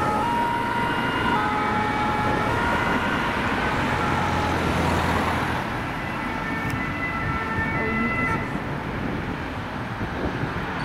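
French ambulance two-tone siren, stepping back and forth between two pitches, over the noise of road traffic; it fades a little about halfway and comes back strongly in the second half.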